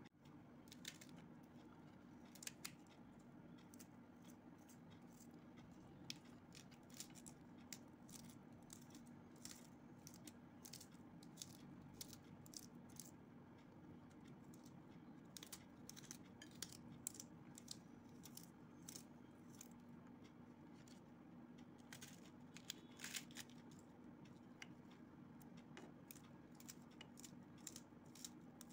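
Knife chopping cabbage on a plate: faint, irregular sharp clicks of the blade slicing and tapping the plate, over a faint steady hum.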